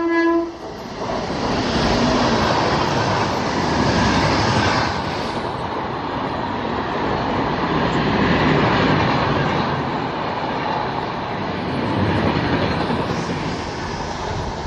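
The horn of a WAP-7 electric locomotive cuts off just after the start. Then comes the continuous loud rumble and rush of a double-decker express's coaches passing close at speed, their wheels running over the rails.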